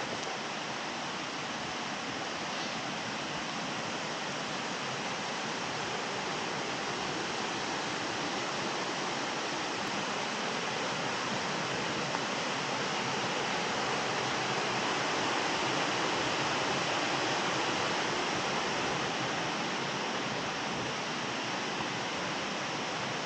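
Waterfall: a steady rush of falling water that swells a little midway and then eases back.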